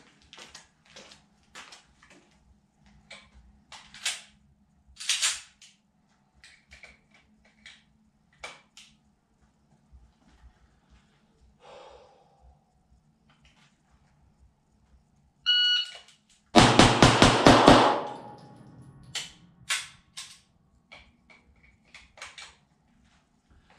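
An electronic shot timer beeps once. About a second later a 9mm pistol fires a fast string of about six shots in well under two seconds: a Blake drill run, two shots on each of three targets. Before the beep there are only faint clicks and scuffs of the shooter getting set.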